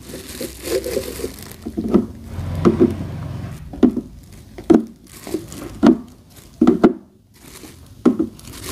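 Thin plastic bag crinkling as eggs are unwrapped, then a series of light knocks about a second apart as hen's eggs are set one by one into the holes of a plastic egg storage tray.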